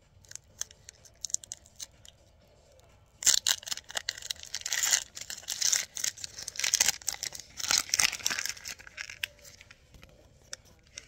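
Foil Pokémon booster pack wrapper being torn open and crinkled by hand. A few faint rustles give way, about three seconds in, to a loud spell of tearing and crackling foil lasting around six seconds, which then trails off into lighter crinkles.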